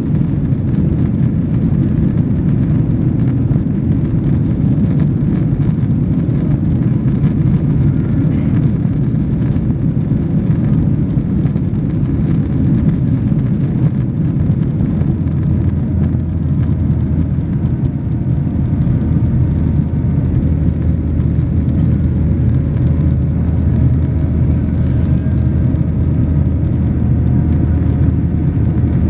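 Boeing 737-800 cabin noise with its CFM56-7B engines at power: a loud, steady low rumble of engine and airflow, with faint steady tones above it.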